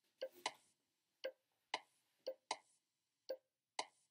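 A sparse rhythmic beat of sharp wood-block-like clicks, about two a second, repeating a pattern of a quick pair and a longer gap.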